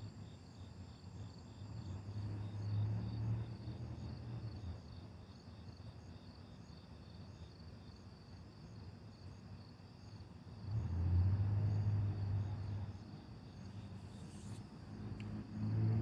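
Crickets chirping steadily in a fast pulsing chorus, with the low hum of passing cars swelling and fading twice, a couple of seconds in and again just after ten seconds.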